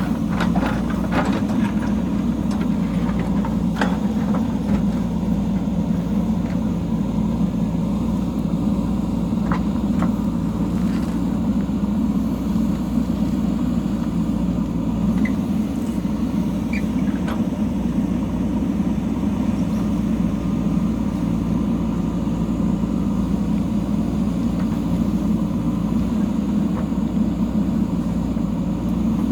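JCB backhoe loader's diesel engine running steadily, with a few sharp clicks and knocks in the first few seconds.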